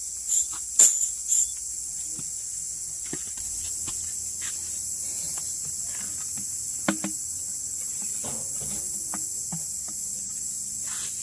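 Steady, high-pitched insect chorus that drones without a break. A few sharp knocks sound in the first second and a half, and one more about seven seconds in.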